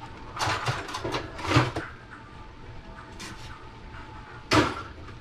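Kitchen clatter: five short knocks and rattles of things being handled, the ones about a second and a half in and near the end the loudest.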